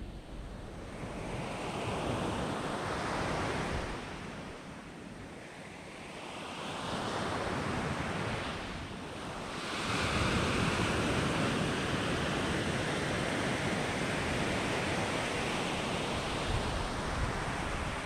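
Surf breaking on a sandy beach: waves swell and wash up the shore in surges, one about a second in, another around seven seconds, then a longer, louder wash from about ten seconds on.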